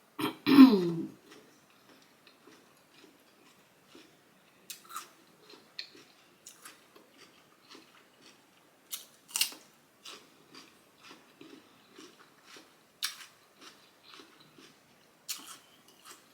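Close-miked chewing of a big mouthful of cucumber, rice and turkey sausage in sauce: crisp crunches, sharp clicks and wet mouth sounds at irregular intervals. A brief voiced hum comes about half a second in.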